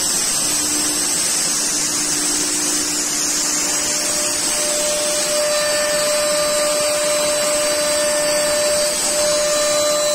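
SEMAC SM 1325 R1BP CNC router's spindle milling a wood panel: a steady whine over the hiss of the cutter, with dust extraction running.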